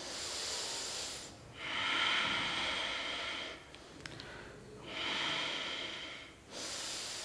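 A man breathing slowly and deeply in and out, in long breaths of about one and a half to two seconds each, four in all. This is the deep, measured breathing of a seated yoga meditation.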